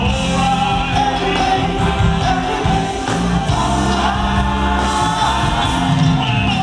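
Live R&B vocal group singing with their backing band of keyboards, bass guitar and drums.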